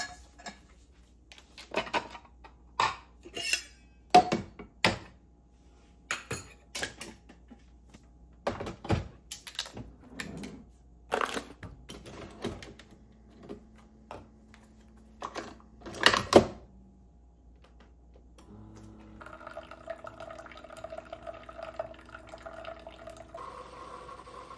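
Clicks and knocks of a Keurig single-serve coffee maker being handled and a stainless tumbler set in place, then the machine humming steadily as it starts to brew. The hum shifts higher near the end.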